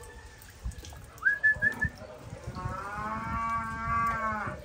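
A cow mooing: one long call of about two seconds in the second half. About a second in come a few short, high chirps.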